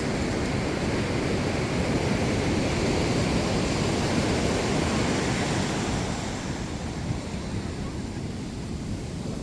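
Ocean surf washing on the beach, a steady rush mixed with wind on the microphone; it eases off a little about six seconds in.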